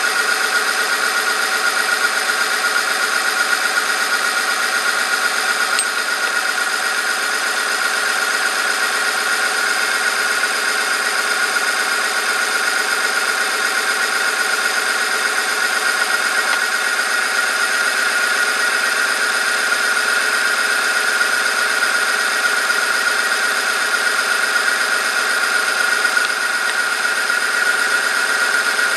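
Bench-top oil friction tester running under a weighted lever: its electric motor spins the test ring against a steel sample lubricated with 0W-30 engine oil, giving a loud, steady squeal that holds one pitch, over the hum of the motor.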